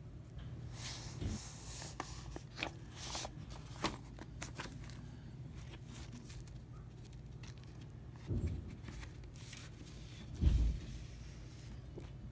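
Handling noise of a vinyl LP's cardboard sleeve and paper booklet: rustling and small clicks in the first few seconds, then two dull thumps, the second the loudest, over a steady low hum.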